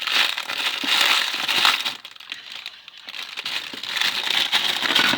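Plastic packaging crinkling and crackling as it is handled and opened, in two spells with a quieter moment between, stopping abruptly at the end.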